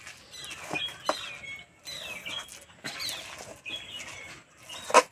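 Small birds chirping over a metal spatula scraping and knocking in a steel karahi as a thick, sticky sesame-and-jaggery mixture is stirred, with one sharp clang of the spatula on the pan near the end.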